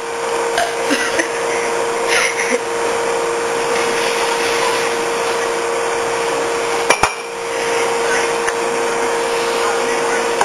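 Steady machine hum with a constant tone, and one sharp knock about seven seconds in.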